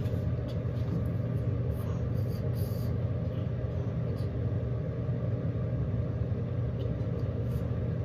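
Steady low mechanical hum with a light hiss over it, unchanging throughout.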